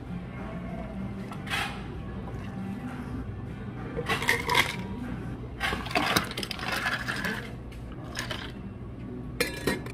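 Ice cubes tipped from a metal scoop into plastic drinking glasses, clinking and clattering in several short bursts, over a low steady hum.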